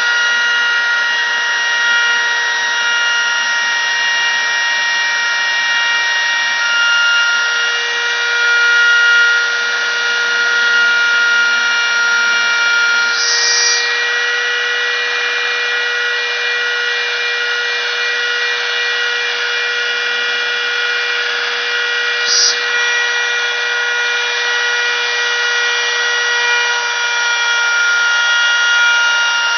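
CNC machine running while cutting out a sign, a loud steady whine made of several held pitches over a hiss. Two brief sharper bursts stand out, one a little before halfway and one about three quarters in.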